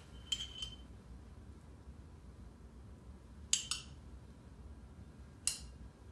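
Light clinks of tableware on a counter. There is a clink with a brief ring and a second tap in the first second, a quick double clink about three and a half seconds in, and a single clink near the end.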